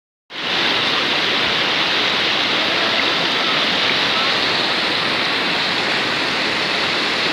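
Waterfall: a steady rush of falling water, starting abruptly just after the beginning.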